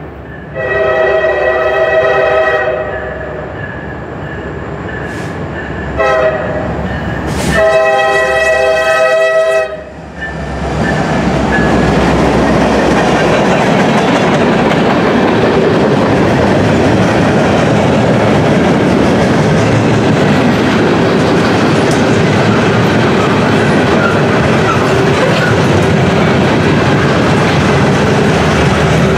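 Norfolk Southern EMD SD70ACC diesel locomotive sounding its multi-chime air horn three times as it approaches: long, short, long. From about ten seconds in, the locomotive passes and loaded coil steel cars roll by with a steady, loud rumble and clatter of wheels on rail.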